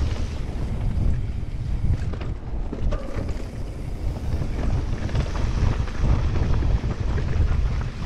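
Wind rushing over the camera microphone at downhill speed, over the low rumble and scattered rattles of a Fezzari La Sal Peak 2.0 mountain bike rolling down a rough, dry dirt trail.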